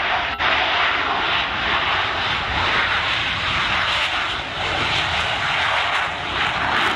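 F/A-18 Hornet's twin General Electric F404 jet engines at takeoff thrust, a loud, steady rushing jet noise as the fighter rolls down the runway and lifts off. The sound drops out for a split second just after the start.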